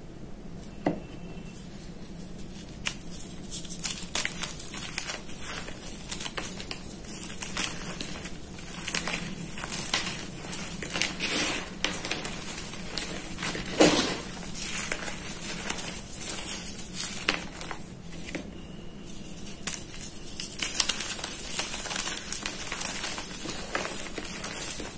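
Fingers crushing soft reformed gym chalk chunks into powder: a steady stream of irregular crisp crunches and crumbling, with one louder crunch about halfway.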